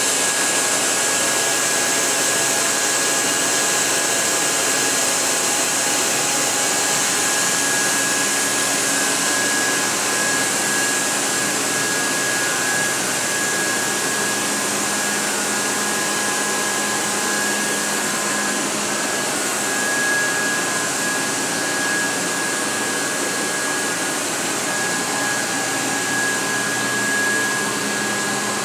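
Matsuura RA1 CNC vertical machining center running: a steady whirring hiss with a thin, steady high whine through it.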